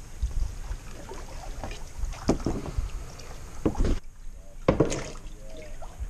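Wooden canoe paddle stroking through shallow creek water beside a kayak, with three sharper splashing strokes about a second apart in the second half. Wind rumbles on the camera microphone.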